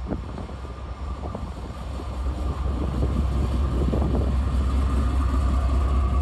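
Amtrak GE P42DC diesel-electric locomotive passing close below, its engine giving a deep steady rumble with a steady whine on top. It grows louder about halfway through as the rear of the locomotive, with its radiator fan, comes underneath.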